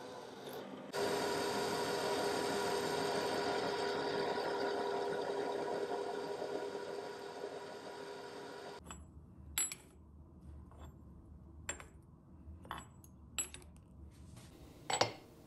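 CNC mill cutting a metal block with a roughing end mill: a steady cutting noise with a high tone, fading and then stopping suddenly about nine seconds in. After that, several sharp metal clinks as machined steel blocks are handled on the vise.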